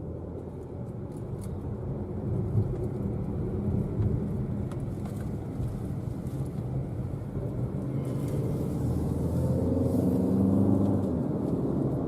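Car engine and tyre noise heard from inside a moving car: a steady low rumble.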